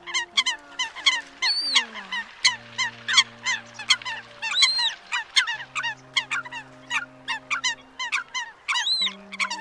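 Eurasian coots calling in a dense, rapid chorus of short sharp notes, several a second, with a few higher arching calls among them. Low steady held tones, changing pitch every couple of seconds, run underneath.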